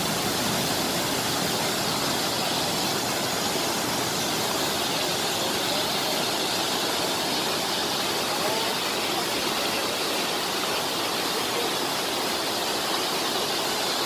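Waterfall cascading down tiers of rock: a steady, unbroken rush of falling water.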